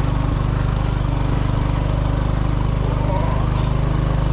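Small motor scooter engine running steadily as the scooter rides up a steep hill road.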